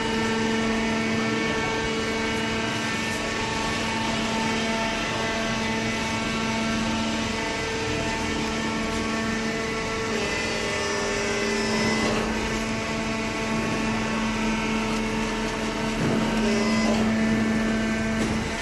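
Fully automatic hydraulic waste paper baler running, its hydraulic pump and motor giving a steady hum. The tone shifts slightly about halfway through and again near the end.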